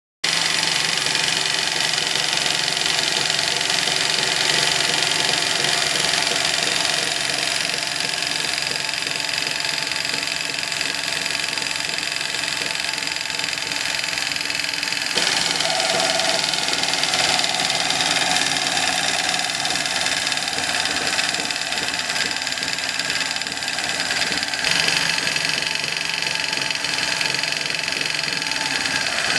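AtlasUSA AT-20U industrial automatic zigzag sewing machine running at speed, stitching a zigzag pattern through fabric. The steady machine noise starts abruptly and changes character suddenly about halfway through and again near the end.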